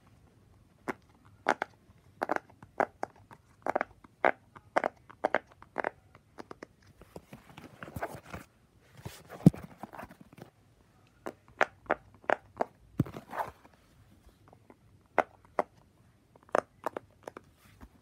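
Bubbles of a large silicone pop-it fidget toy being pressed in one after another, each giving a short sharp pop, at an uneven pace of one or two a second. About halfway through there is a stretch of rustling with one louder knock.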